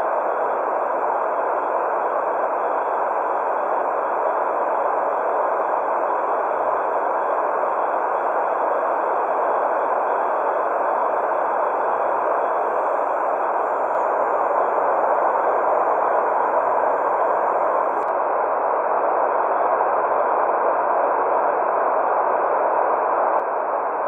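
Steady white noise for infant sleep: a constant, even hiss centred in the middle range, with no rhythm or change.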